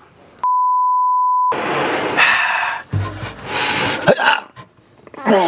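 A one-second 1 kHz censor bleep about half a second in, covering a word. It is followed by noisy handling sounds and a man's strained voice as he heaves a heavy plywood cabinet carcass off the workbench.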